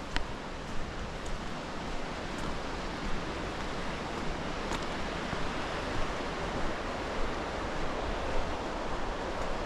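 Steady rushing of a mountain creek's falling water, with a few faint clicks.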